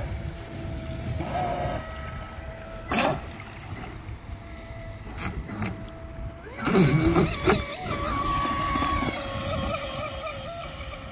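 Pro Boat Sonic Wake RC boat's electric motor whining steadily as it runs across the water. About seven seconds in it surges louder and then wavers up and down in pitch with the throttle. Wind rumbles on the microphone throughout, with a sharp knock about three seconds in.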